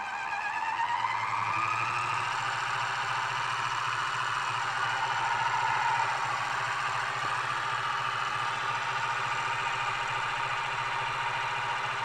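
Small electric motor of a Rollie Pollie magnetic separator spinning up as its voltage regulator is turned up. Its whine rises in pitch over about the first two seconds, then it runs steadily over a constant low hum.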